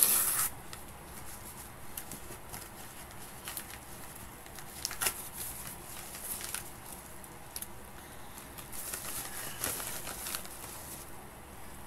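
Yellow padded paper mailer being opened and handled: rustling and crinkling paper with scattered crackles and clicks, loudest right at the start.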